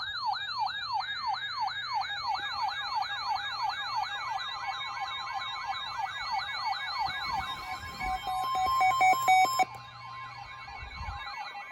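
Several NOAA weather radio receivers sound their alert alarms at once, set off by a winter storm warning. A siren-like sweep repeats about three times a second over a higher warble and steady tones. A louder rapid beeping joins about eight seconds in and cuts off suddenly near ten seconds.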